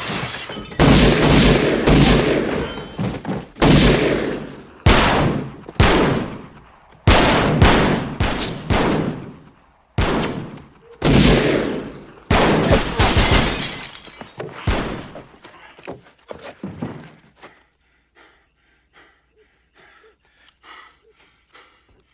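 Gunfire in a movie shootout: a dozen or more loud shots, some in quick runs and others a second or two apart, each with an echoing tail. The shots stop after about fifteen seconds, leaving faint scattered sounds.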